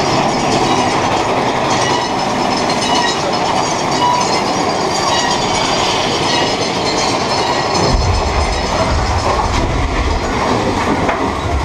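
Mine-train roller coaster cars of Big Thunder Mountain Railroad running along the track with a steady rattling clatter of wheels and cars, with faint squealing. A deep rumble joins about eight seconds in.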